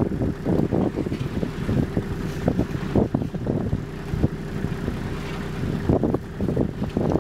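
Wind buffeting the microphone: an uneven low rumble that gusts and flutters throughout.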